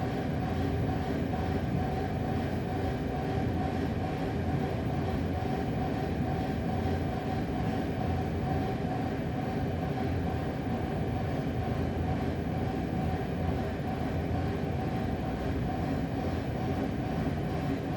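Sustained low banging and rumbling, dense and unbroken, with a steady hum running through it and no change in level.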